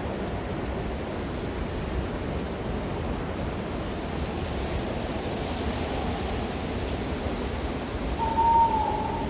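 Steady wind blowing in an alpine mountain night ambience. About eight seconds in comes a single short hoot, the loudest moment.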